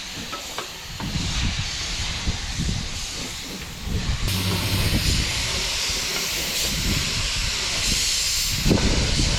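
A steady spraying hiss. It grows stronger about four seconds in and eases off just before the end.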